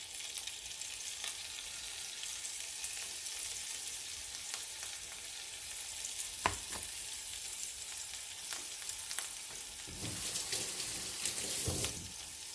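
Flour tortilla with birria meat and cheese frying in oil in a pan on medium-high heat: a steady sizzle, with a sharp click about halfway through and a few knocks near the end.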